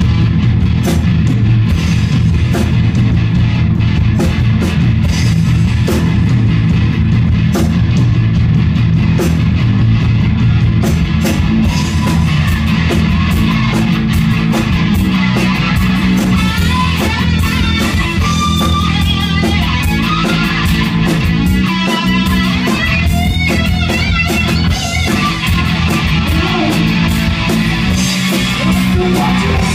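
Live rock band playing loudly, with electric guitars over a drum kit and no singing. Through the middle, a lead guitar plays bending, wavering high notes.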